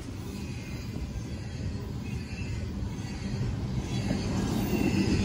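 Double-stack intermodal container cars of a CSX freight train rolling past: a steady rumble of steel wheels on rail, growing slightly louder toward the end.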